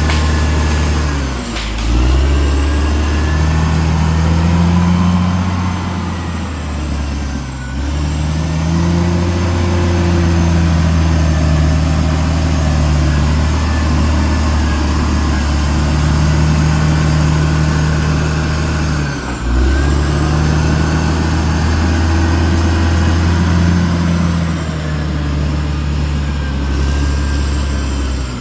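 Caterpillar D6R XL bulldozer's diesel engine running hard and steadily, its pitch dipping briefly and recovering several times.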